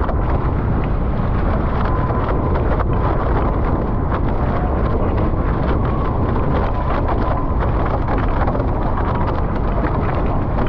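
Loud, steady wind buffeting the microphone over the rush of water along the hulls of a Nacra 15 sailing catamaran under way. A faint thin whistle comes and goes.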